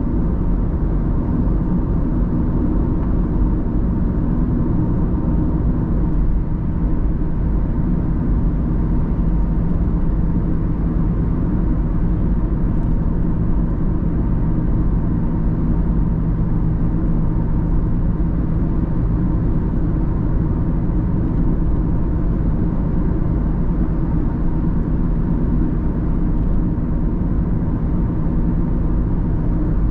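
Car driving at a steady pace: a continuous low rumble of engine and road noise that does not change.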